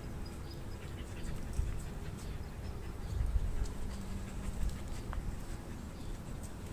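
Dogs panting and moving about, with a few light clicks and a low rumble that is loudest about three seconds in.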